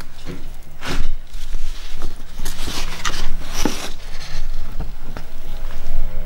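Sheets of paper rustling and crackling as printed pedigree pages are handled and one is turned over, in irregular bursts strongest around the middle, over a steady low hum.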